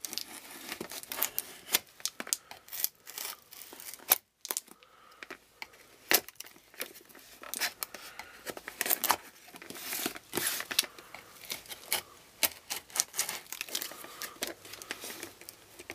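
Shipping package being torn open by hand: repeated irregular ripping and crinkling of the packaging, with a brief break about four seconds in.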